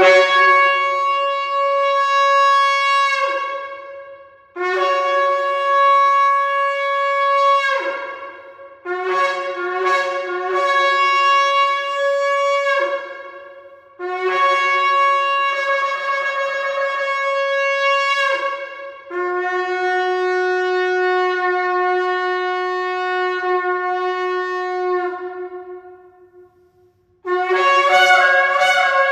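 Ram's-horn shofar blown in a series of about six long, loud blasts with short breaks between them. Most blasts end in a falling slide in pitch.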